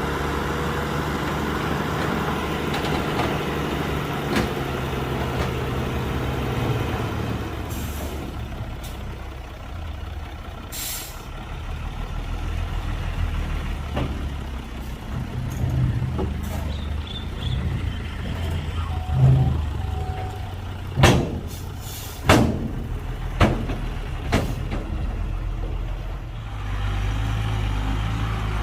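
Heavy diesel earthmoving machinery running: a steady engine drone that changes in pitch and load after about seven seconds. There is a short hiss about a third of the way in, and several sharp metallic knocks and bangs come in the last third.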